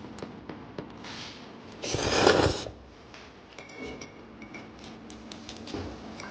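Tableware at a meal: light clicks and clinks of dishes and utensils, with one louder noisy rush lasting just under a second about two seconds in, and a short ringing clink a little later.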